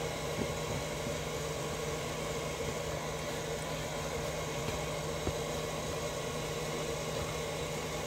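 Steady low machine hum with a constant low tone, broken by a couple of faint ticks.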